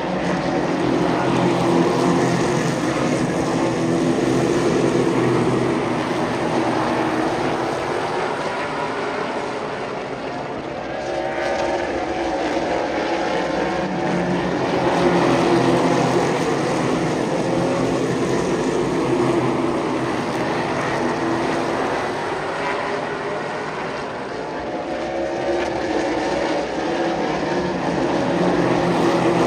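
A field of super late model stock cars running laps on a short oval, their V8 engines sounding together. The sound swells and fades in long waves as the pack comes around and passes.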